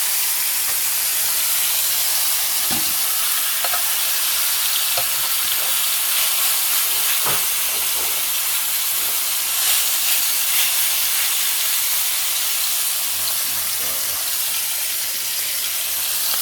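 Steak searing in a hot cast iron skillet: a steady, loud sizzle with a few brief crackles.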